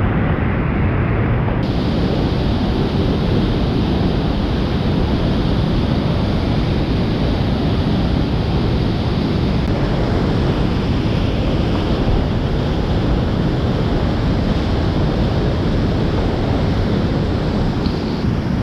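Loud, steady rushing of whitewater pouring over a steep boulder creek rapid, heard close up. The sound brightens slightly about a second and a half in.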